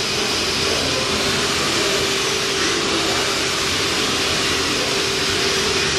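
Steady whirring noise with a constant hum from running workshop equipment.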